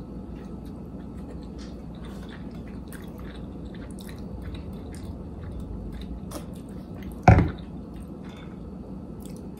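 Chewing and soft wet mouth clicks of someone eating Chinese takeout, with one short loud thump about seven seconds in.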